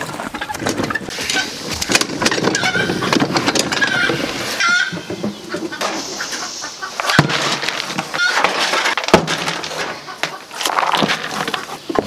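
Chickens clucking over the rattle and scrape of a garden cart pulled across gravel and a manure tray being slid out from under wire rabbit cages.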